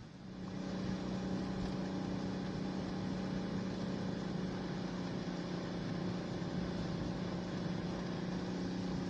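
Suzuki Every kei van's 660 cc three-cylinder engine pulling uphill under load in four-wheel drive, heard inside the cabin. It climbs to higher revs within the first second, then holds steady revs with a steady hum and road noise.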